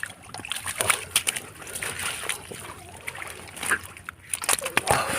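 Water splashing and sloshing in irregular bursts as hands and bodies move through shallow water, groping for catfish.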